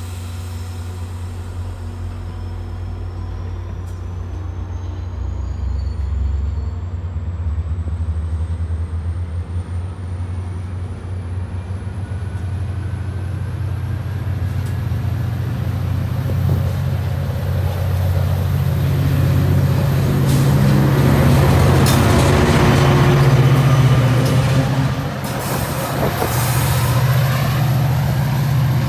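Metra bilevel commuter train pulling away from the platform and gathering speed, pushed by a diesel locomotive at the rear. A steady low diesel engine drone runs under a high whine that rises steadily in pitch as the train accelerates. Wheel and rail noise grows louder, loudest in the last third as the locomotive goes by.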